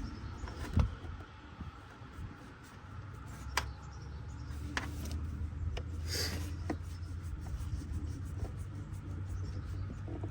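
Scattered clicks and knocks of hand work on a truck engine, over a low steady rumble.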